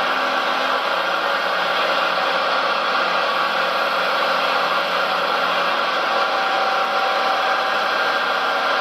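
Small electric motor and gearing of a radio-controlled model vehicle running steadily: an even whine over a hiss, with no deep engine sound.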